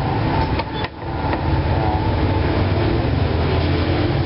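Steady low rumble of street traffic, with a few light taps of a knife and spatula on a plastic cutting board in the first second.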